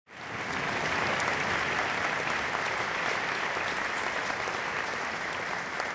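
Audience applauding steadily, a dense patter of many hands clapping that fades in at the start.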